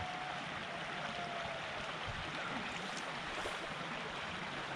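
Stream water flowing steadily.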